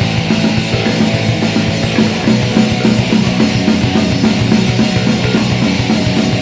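Heavy metal music with distorted electric guitar and drum kit at a steady beat.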